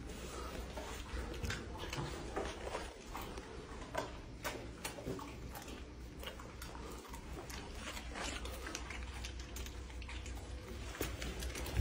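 Scattered light clicks and taps, irregular and a few per second, over a steady low hum.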